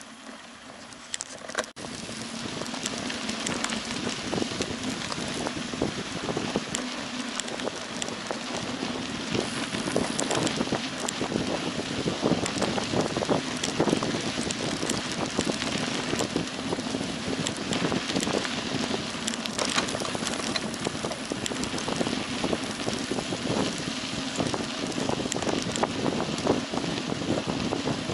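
Mountain bikes riding over a sandy dirt forest track: tyres crackling over sand and grit with rattling from the bikes, and wind buffeting the microphone. The noise gets louder about two seconds in.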